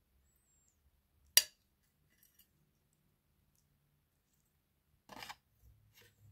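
Metal tongs clinking against a jar and a ceramic plate while pickled garlic is lifted out: one sharp clink about a second and a half in, then a short rattle of clinks and scrapes near the end.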